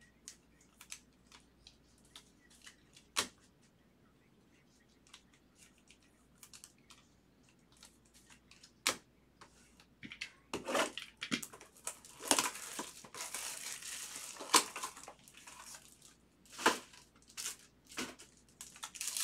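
Hands handling trading cards, with scattered light clicks. About ten seconds in come a few seconds of crinkling and tearing as the packaging of a sealed 2021 Bowman Chrome box is opened and a foil card pack is pulled out.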